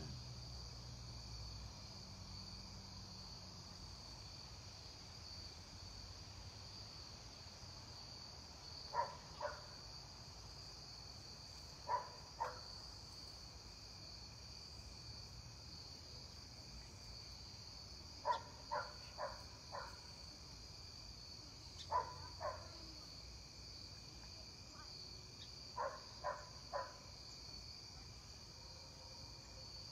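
Crickets chirring steadily, with short sharp clicks in twos and threes every few seconds.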